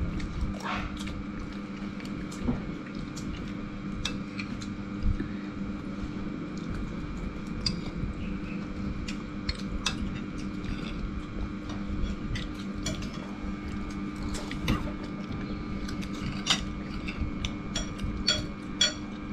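Metal spoons clinking and scraping against ceramic rice bowls and plates in scattered light taps, over a steady low hum.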